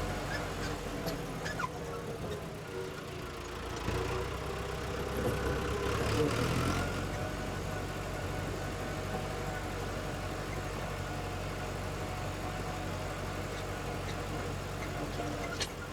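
A tractor's diesel engine running steadily, growing a little louder for a few seconds about four seconds in before settling again.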